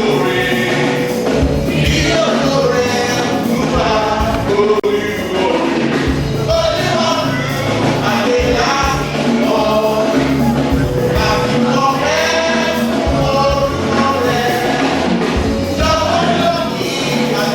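A choir singing a gospel song over instrumental backing with a steady beat.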